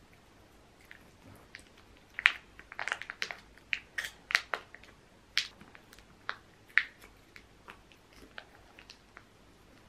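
Cat licking and smacking at a squeeze-stick liquid treat: a run of short wet clicks, thickest and loudest from about two to five seconds in, then thinning out toward the end.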